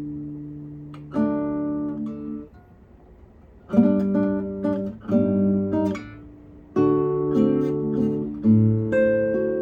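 Acoustic guitar played solo, plucked chords and single notes in short phrases. There is a pause of about a second near the three-second mark, then the chords come more closely together.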